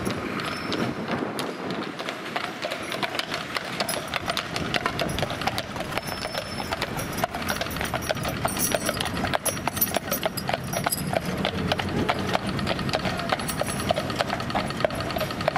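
Hooves of a pair of heavy draught horses clip-clopping on the road as they pull a loaded wagon, a steady run of sharp hoof strikes.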